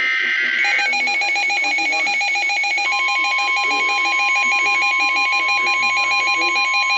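NOAA Weather Radio alert tones. A burst of screechy SAME digital header data ends just under a second in, and a weather alert radio's fast-pulsing electronic beep alarm starts. About three seconds in, the steady 1050 Hz Weather Radio warning tone joins it.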